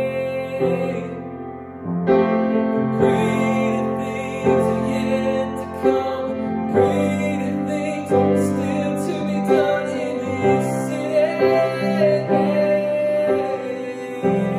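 A man singing while accompanying himself on a grand piano, held piano chords under his voice, with a short break between phrases about a second and a half in.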